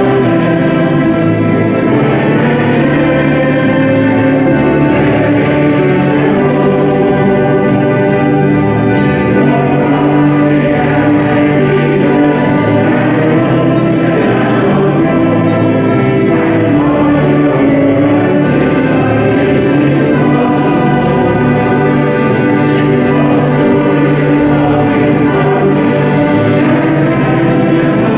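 Mixed choir singing a Danish gospel song, accompanied by a small band of accordion, fiddles, saxophone and banjo.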